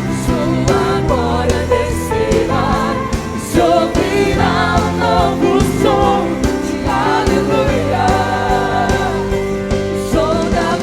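Live Christian worship music: a group of voices singing over a full band with steady drums.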